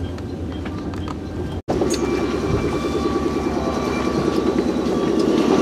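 Electric train at a station: a steady low hum from the stopped train. About a second and a half in, the sound cuts off abruptly, then a louder train rumble rises steadily along the platform.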